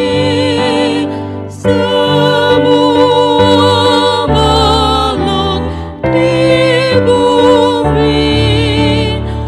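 Two women singing a hymn into microphones over a sustained instrumental accompaniment, their long held notes wavering with vibrato. Short breaks between phrases come about a second and a half in and again about six seconds in.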